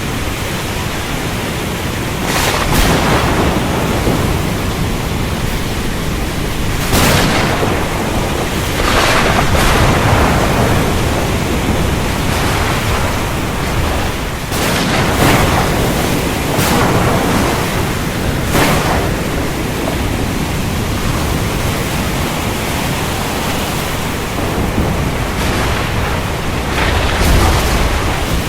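Heavy rain falling steadily, broken by several sudden cracks of thunder that fade out over a second or so.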